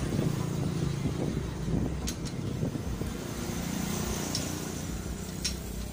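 A motor vehicle's engine running steadily in a low hum, with a few short sharp clicks about two seconds in, past four seconds and near the end.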